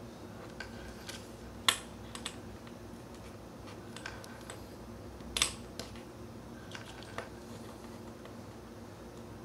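A small clip-on MP3 player and its earphone cord being handled on a desk: light plastic clicks and knocks, with two sharper clacks, one about two seconds in and one about five and a half seconds in.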